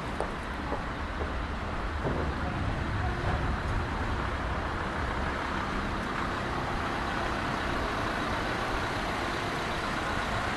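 City street traffic: a steady low engine rumble from passing vehicles, a little louder from about two seconds in.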